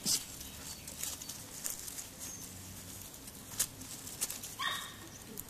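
Puppies scrambling over dry leaves and grass, making scattered rustles and scuffs, with one short, high yip from a puppy about four and a half seconds in.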